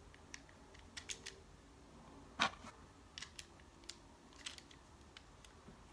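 Faint, irregular small clicks of .22 LR cartridges being dropped one by one into a GSG-16 magazine held down by its spring lever, with one louder click about two and a half seconds in.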